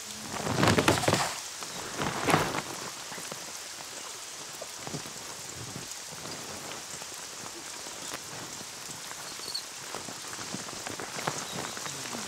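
Steady rain falling on wet ground and foliage, with two louder bursts of noise in the first few seconds.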